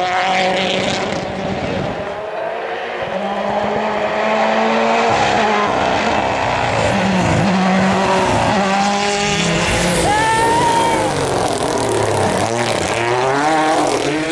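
Rally car engine revving hard, its pitch climbing and dropping again and again through gear changes and lifts.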